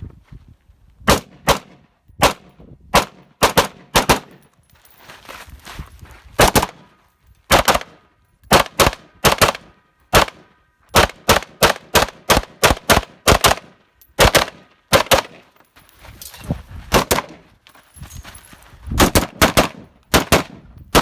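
AR-15 carbine in .223 with a muzzle brake firing about thirty fast semi-automatic shots. The shots come in strings of two to six, with short pauses between the strings.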